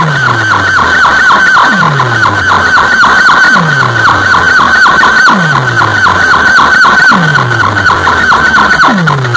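Large sound-box rig of DJ speaker cabinets and horn speakers blasting an electronic competition sound: a deep falling bass sweep about every second and a half under fast, high-pitched repeating chirps, several a second.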